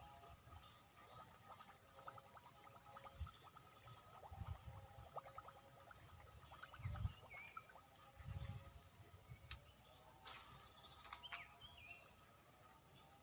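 Steady high-pitched insect chorus, crickets or similar, with a couple of short bird chirps and a few low thumps, the loudest about halfway through.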